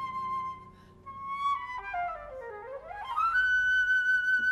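Contemporary classical chamber music: a single high melodic line holds a long note, then slides smoothly down by more than an octave and back up to a higher note that it sustains, over a soft low accompaniment that drops away about a second in.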